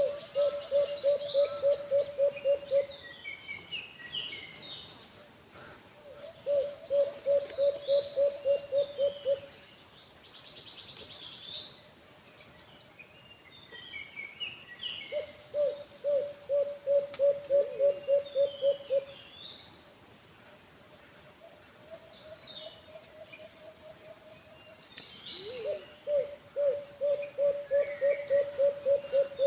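A dove (alimukon) calling in phrases of about a dozen quick, low hoots, each phrase lasting some three seconds, four times. Smaller birds chirp at a higher pitch between the phrases, over a steady high insect-like whine.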